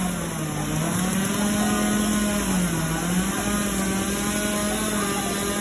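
Small engine running fast and steady, its pitch dipping briefly twice.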